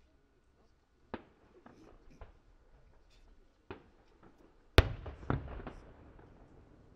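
Fireworks shells bursting: scattered sharp bangs, the loudest nearly five seconds in, followed half a second later by another bang and a brief rumbling crackle.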